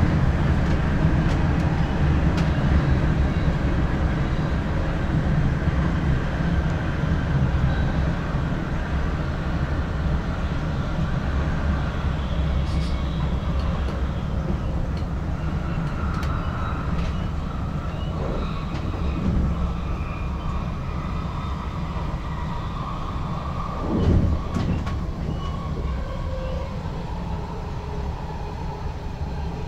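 NS ICM (Koploper) electric intercity train running along the track, heard from the driver's cab: a steady low rumble of wheels and running gear that slowly eases in level. There is one short thump about 24 seconds in.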